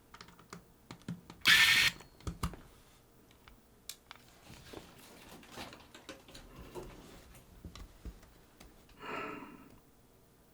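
Light clicks and taps of small parts and tools being handled while a Sony HVR-DR60 recorder's main block and hard-drive case are taken apart. A short, loud scrape comes about one and a half seconds in, and a softer noisy scrape comes near the end.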